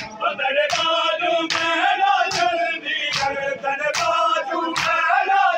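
Crowd of men chanting a noha (Muharram lament) in unison, with a sharp, synchronized chest-beating (matam) strike landing on the beat a little more than once a second.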